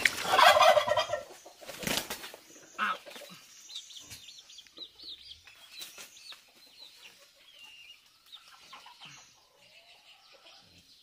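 Chickens calling, loudest in the first second, then many faint, short, high chirps scattered through the rest.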